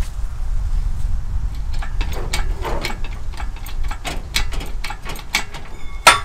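Shop engine hoist being worked by hand to lift an engine on its chain, with irregular metallic clicks and knocks from about two seconds in and a loud clank near the end.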